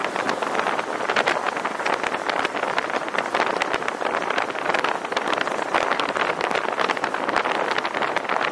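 Wind rushing over the microphone with road noise from a car driving: a steady hiss full of fine crackling.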